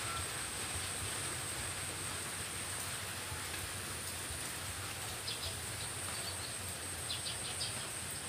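Ambient background: an even hiss with a constant high-pitched whine, and a few short high chirps about five seconds in and again around seven seconds in.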